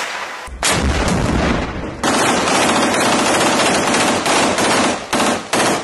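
Rifle gunfire in long, dense automatic bursts, with a short burst at the start and brief breaks about two seconds in and near the end.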